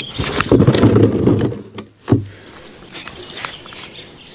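Hot engine oil gushing from the open sump drain hole and splashing into a drain pan and past it, a loud, spattering rush for about a second and a half. Then a single sharp thump about two seconds in and a few light clicks.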